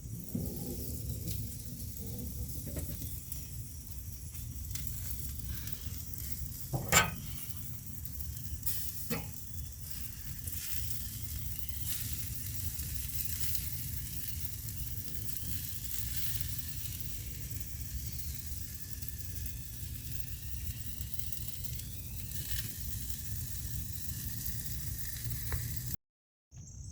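Food sizzling and crackling steadily on a grill, with a sharp click about seven seconds in and a fainter one about two seconds later. The sound cuts off suddenly near the end.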